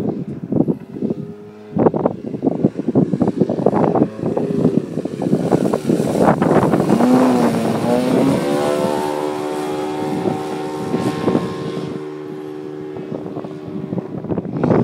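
Engine of a giant-scale Fokker Dr.I radio-controlled model triplane in flight, passing close by. Its note climbs about halfway through, then holds steady. Wind buffets the microphone, strongest in the first half.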